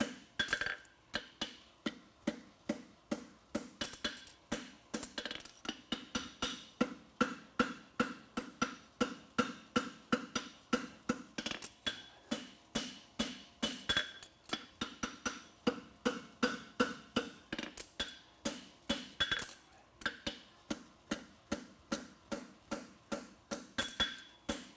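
Farrier's hand hammer striking a red-hot steel horseshoe bar on an anvil in steady, evenly spaced blows, about two to three a second, each with a short metallic ring. The blows forge the bend at the toe of the shoe.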